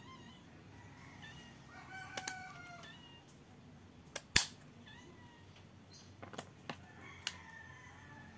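Kitchen scissors snipping the sharp spines and fins off rabbitfish (danggit): a few sharp snips, the loudest a little past the middle. A rooster crows once in the background about two seconds in.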